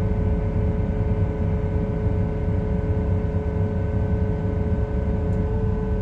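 Diesel engine of a farm machine running steadily at a constant speed: a low rumble with a steady whine over it.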